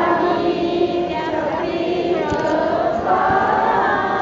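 Crowd of voices singing together in long held notes that shift in pitch.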